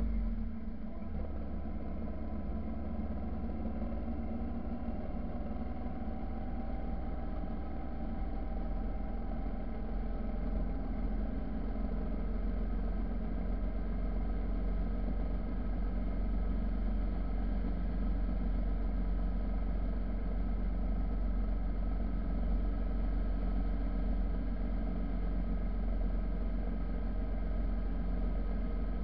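Motorcycle engine running steadily while riding, with wind noise on the microphone; the engine note rises a little a few seconds in.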